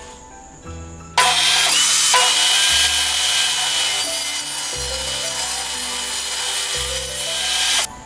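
Jigsaw cutting through wood, with a steady high motor whine. It starts abruptly about a second in, runs at an even level for nearly seven seconds and stops abruptly, over background music.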